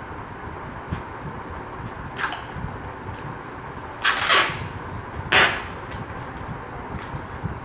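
Packing tape being pulled off the roll in a few short, harsh rips: a lighter one about two seconds in, then two loud ones about four and five and a half seconds in.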